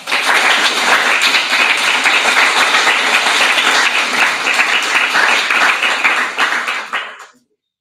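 Audience applauding, many hands clapping at once, dying away about seven seconds in.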